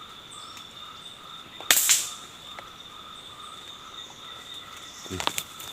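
A single sharp shot from an air rifle about two seconds in, over a steady high-pitched drone of forest insects, with some rustling near the end.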